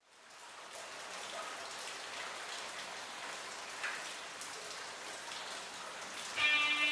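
A steady hiss with a few faint crackles. About six seconds in, an electric guitar starts playing.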